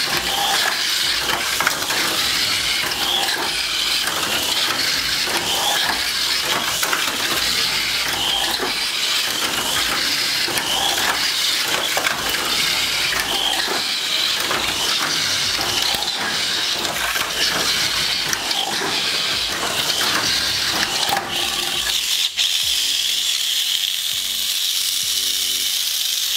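Auldey Ray Stinger mini 4WD car running on a plastic mini 4WD track: its small electric motor and gears make a steady high whine over a constant clatter of the car against the track. About 22 s in, the clatter stops and the whine goes on alone as the car is lifted off the track with its wheels spinning free.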